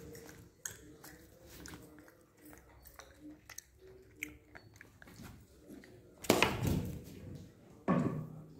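Gray langur chewing and crunching food close by, a run of small crisp clicks and crunches. About six seconds in and again near the end come two much louder bursts of noise.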